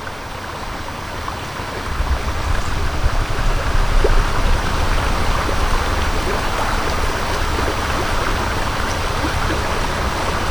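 Stream water rushing steadily over rocks, with a low rumble underneath, growing a little louder about two seconds in.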